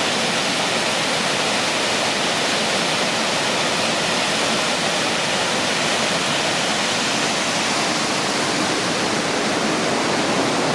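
Steady rush of fast-flowing water in a canyon, a constant roar with no breaks.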